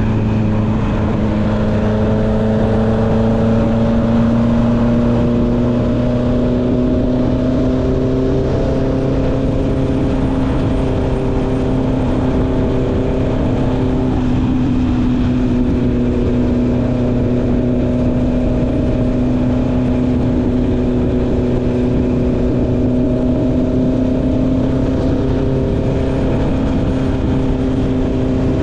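Honda CB650R's inline four-cylinder engine through an Akrapovic exhaust, running steadily at cruising speed. Its note creeps slowly up in pitch as the bike holds a gentle acceleration.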